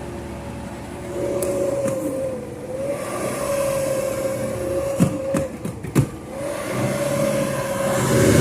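Car engine held at high revs near redline, a steady high-pitched drone, with a few sharp knocks around five to six seconds in.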